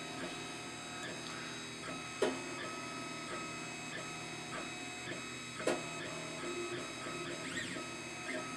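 Monoprice Select Mini 3D printer printing: its stepper motors whine in steady tones that shift from move to move, with two sharp clunks, one about two seconds in and a louder one past five and a half seconds. The clunking usually means the extruder is not pushing enough filament through.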